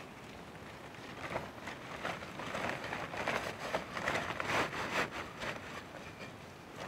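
Rustling and crackling of leafy carrot tops against a woven plastic sack as bunches of freshly pulled carrots are stuffed into it. It builds about a second in and eases off near the end.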